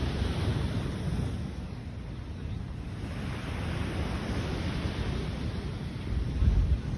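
Sea waves washing ashore in a continuous surf noise, with wind buffeting the microphone as a low rumble that swells and fades; the loudest surge comes near the end.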